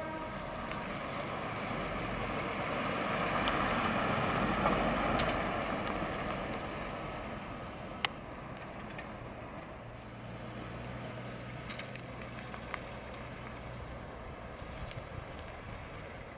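1954 Bentley R-Type saloon driving by at low speed, its straight-six engine and tyres on asphalt growing louder as it comes near, loudest about four to five seconds in, then fading as it drives away.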